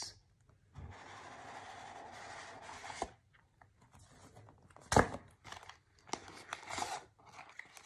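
A snug cardboard cube box being opened: the lid slides off with a steady scraping hiss for about two seconds, then a single sharp knock about five seconds in, followed by light rustling and clicking of the packaging being handled.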